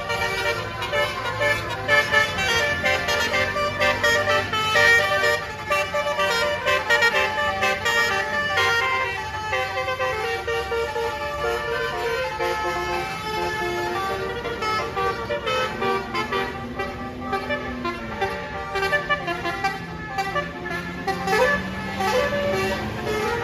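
Basuri telolet musical air horn on a bus playing a many-note melody, its notes changing in quick steps. A bus engine runs under it, its pitch rising over the last few seconds.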